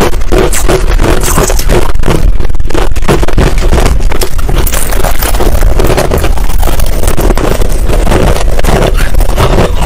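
Close-miked chewing of finely crushed ice: a dense, continuous crackle of many small crunches.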